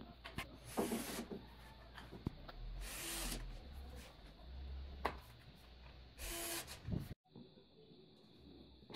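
Pneumatic nail gun fixing a trim strip, giving three short hisses of air with sharp clicks around them. The sound cuts off abruptly about seven seconds in, followed by a faint steady hiss.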